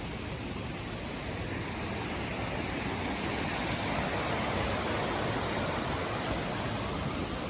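Rushing river water, a steady noise that swells a little in the middle.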